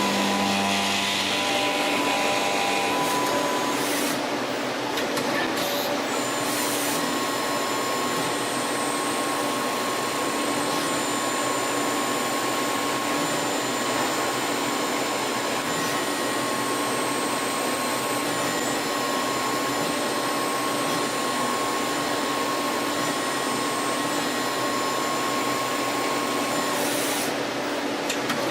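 CNC lathe running, a steady machine whir with several held whining tones that shift briefly a few seconds in and again near the end.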